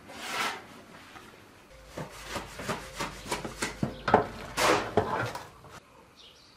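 Boiled rice being drained for pilaf: an aluminium pot is tipped against a stainless-steel colander in a sink, giving a run of clattering metal knocks, with a short rush as the rice and water pour out about four to five seconds in.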